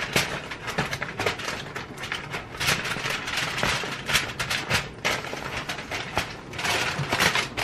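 Aluminium foil crinkling as hands press and crimp it down over a baking pan, a dense run of irregular sharp crackles.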